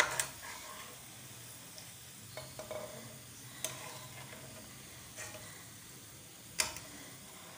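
Oil sizzling in a pan as fried onions, cooked to light brown, are scooped out with a slotted metal spoon. The utensil scrapes and clinks against the pan several times, sharpest near the end.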